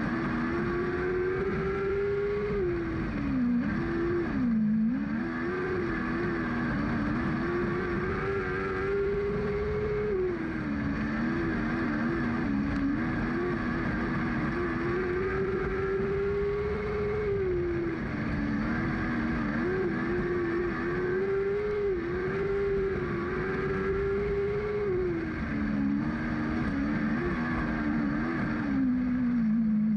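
Lightning sprint car's engine heard from the in-car camera while racing. The revs climb and hold, then sag and pick up again every few seconds, and they fall away near the end.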